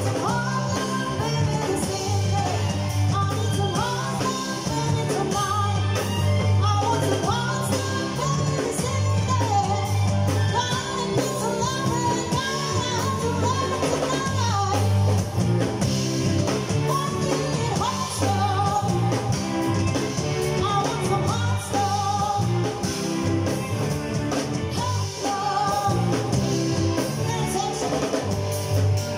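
Live band playing a song: a woman singing into a microphone over electric bass, electric guitar, keyboard and drum kit, with a steady beat.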